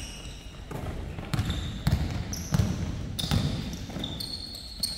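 A basketball bouncing on a court floor: about five heavy bounces, roughly two-thirds of a second apart, that stop a little past halfway. Short high squeaks sound throughout.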